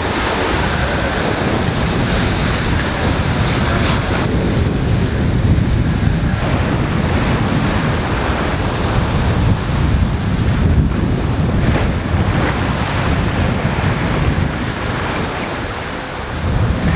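Sea rushing and splashing along the hull of a sailing yacht driving through choppy waves, with strong wind buffeting the microphone.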